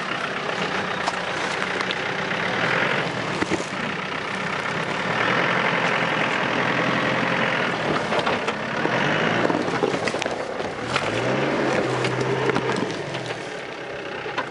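Land Rover Defender's engine revving up and down in several swells, with a rise-and-hold near the end, as it crawls over a rocky step. The tyres crunch and grind on loose stone.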